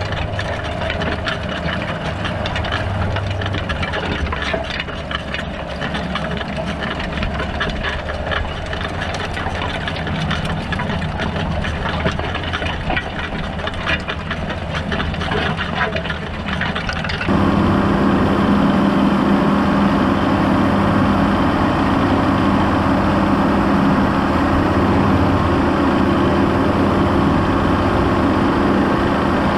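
John Deere 6930 tractor's six-cylinder diesel running under load while pulling a Unia Mars 4 m cultivator, mixed with a dense clatter of the cultivator's tines and rollers working the soil. About 17 seconds in, the sound switches to a louder, steadier engine hum close to the tractor's front wheel, with less clatter.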